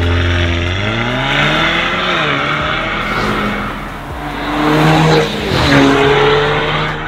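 Mercedes-Benz GLB 250's turbocharged four-cylinder engine through a de-catted, turbo-back Armytrix valvetronic exhaust, accelerating with its note rising about a second in. Later it drives up and passes close by, louder, its pitch dropping as it goes past near the end.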